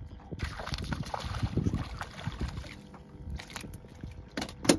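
A small hooked fish swung aboard an aluminum boat, knocking and flopping against the deck several times near the end, over a steady rushing noise.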